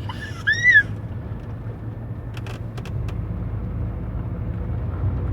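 Steady low rumble of a moving car heard from inside the cabin, with a child's short high-pitched squeal about half a second in and a few sharp clicks near the middle.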